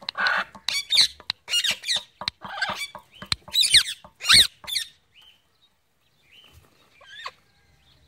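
Parrot giving a rapid run of harsh squawks and screeches with quick pitch sweeps for about five seconds, then one short call near the end.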